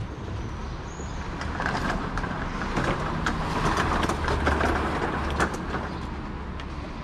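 Small wheels of a loaded hand trolley rolling and rattling over paving slabs and cobbles, louder through the middle with many small knocks over the joints.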